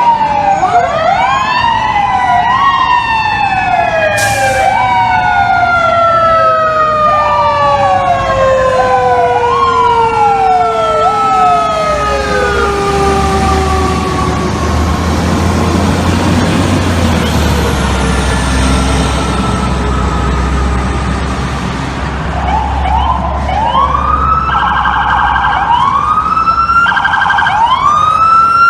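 Fire truck sirens. First a mechanical siren is wound up again and again, each time rising sharply and coasting down, with long falling tones as it winds down. A heavy truck engine rumbles past midway, and from about 23 s to the end an electronic siren wails in quick rising sweeps.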